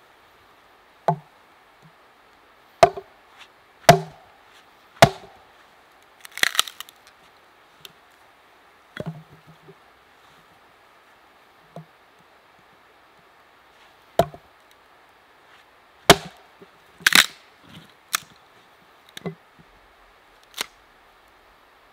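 Small axe chopping into wood: about a dozen sharp strikes at uneven intervals. Twice there is a longer crackle as the wood splits.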